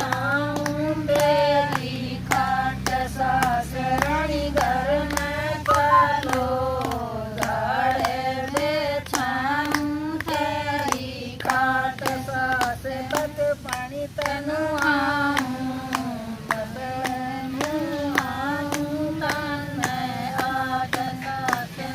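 Women singing a Haryanvi folk bhajan in unison, with steady hand-clapping keeping the beat.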